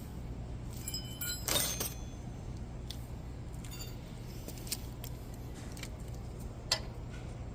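Metal tools clinking and scraping against a brake caliper while working at a stuck slide pin: a ringing metallic clink and clatter about a second and a half in, then a couple of sharp single clicks. A low steady hum runs underneath.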